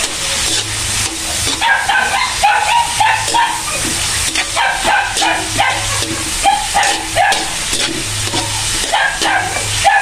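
Chicken, onion and garlic frying in oil in a metal wok, sizzling, while a spatula scrapes and clatters against the pan. Over this come short, high whining squeaks, again and again.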